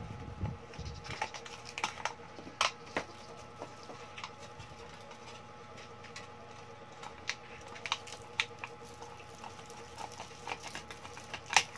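Empty aluminium Coke can being turned against a blade to cut it around, giving irregular small clicks and crinkles of the thin metal, the sharpest about two and a half seconds in and again near the end.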